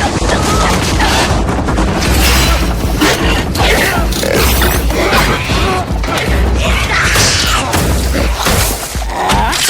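Action-film soundtrack: a dramatic music score with deep bass over repeated booms, crashes and metallic impacts.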